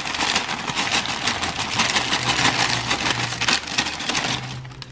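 A sheet of paper crinkling as hardened, sugar-coated pretzel crumble is tipped off it, the hard pieces clicking and rattling in quick succession; it thins out near the end.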